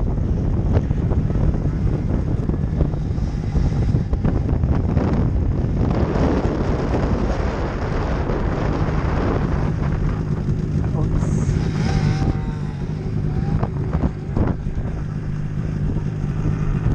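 Snowmobile engines running, with wind buffeting the microphone; a sled's engine whines up and down briefly about two-thirds of the way through.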